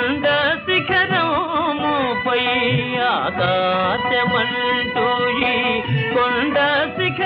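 Instrumental interlude of a Telugu devotional song: an ornamented melody with gliding, wavering notes over a steady drone, with occasional low drum strokes.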